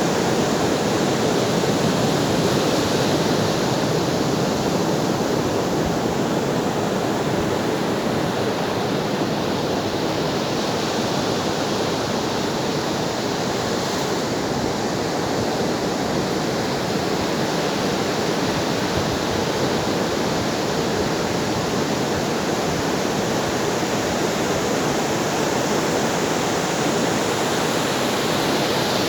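Ocean waves washing onto the shore in a continuous rush of surf, swelling and easing slowly, with the hiss brightening near the start and again near the end.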